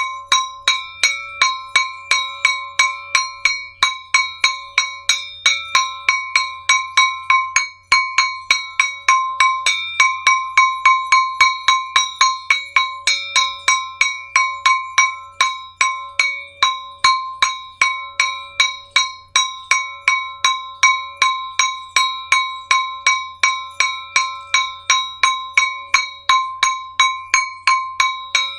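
Metal zalar (jhalar), a small brass gong, struck rapidly and evenly, about four strikes a second, each stroke ringing brightly into the next.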